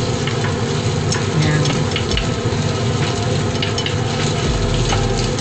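Ginger slices sizzling in a little hot oil in a saucepan, stirred with a utensil that clicks against the pan now and then, over the steady rush of a kitchen exhaust fan.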